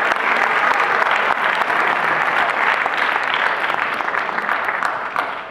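Audience clapping, a dense steady applause that dies away near the end.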